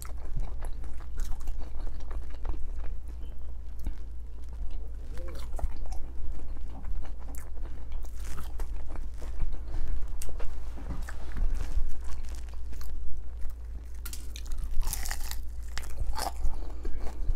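Close-up chewing and crunching of fried chicken wings and crinkle-cut french fries, with many small crackles and mouth clicks. There is a louder crunchy bite into a wing about fifteen seconds in.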